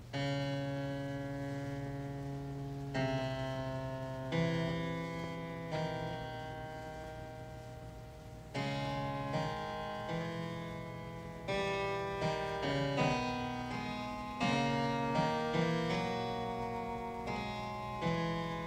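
Background classical piano music: slow chords that ring out and fade, with the notes coming more quickly in the second half.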